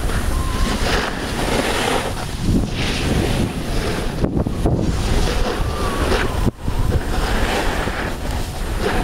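Wind rushing and buffeting over the microphone of a camera carried while skiing downhill: a loud, uneven roar with a brief sharp drop about two-thirds of the way through.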